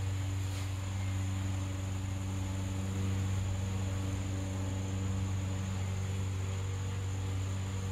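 Lawn mower engine running steadily at a distance, a low hum with a few even overtones that swells in just before and fades just after these seconds. A constant high insect drone sounds underneath.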